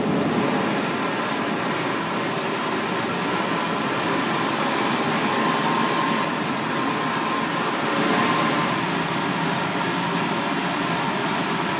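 Steady running noise of commercial kitchen equipment, with a faint constant hum; a brief click about seven seconds in.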